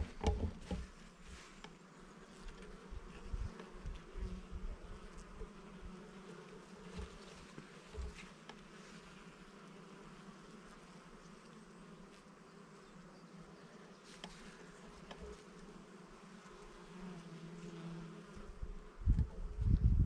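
Many bees buzzing as they forage for nectar on globe thistle flower heads, a faint steady hum. Low rumbling thumps come in near the end.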